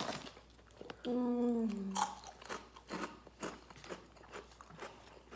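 Close chewing and crunching of crunchy onion-ring chips in the mouth, a run of many short irregular crunches, with a brief hummed "mmm" of enjoyment about a second in.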